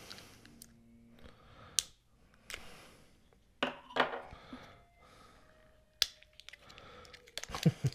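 Thick plastic packaging being cut and pried open with an opener: scattered sharp clicks and crackles, with a quicker run of clicks near the end.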